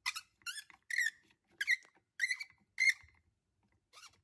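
Plastic squeaking in short repeated chirps, about seven in three seconds, as the clear lower part of a protein skimmer's foam distributor is twisted and pressed onto the pump housing.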